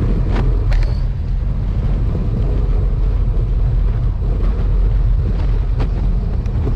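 Wind buffeting a bike-mounted GoPro Hero 6's microphone while riding a road bike, a steady low rumble with tyre noise on the tarmac and a few faint ticks from the bike.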